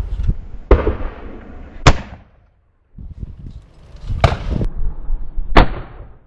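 Akkar Triple Crown 12-gauge three-barrel shotgun firing at clay targets: four sharp shots in two pairs about a second apart, each with a short echoing tail.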